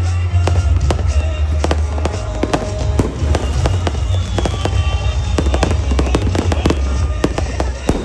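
Fireworks going off in a rapid, irregular run of sharp bangs and crackles, several a second.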